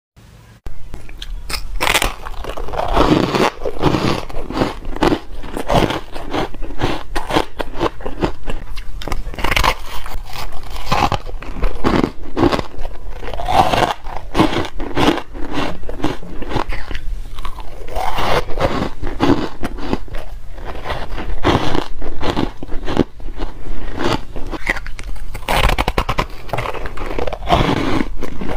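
Close-up biting and chewing of frost-coated ice blocks: a dense, irregular run of dry, crisp crunches and crackles that starts about half a second in.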